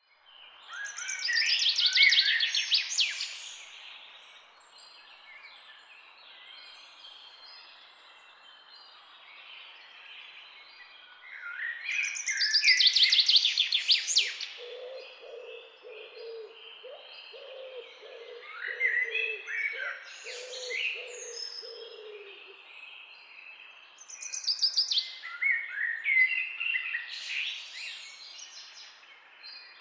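Wild birds singing: loud phrases of quick, high, gliding notes come three times, with fainter chirps between them over a light background hiss. In the middle there is a run of about a dozen short, low, evenly repeated notes.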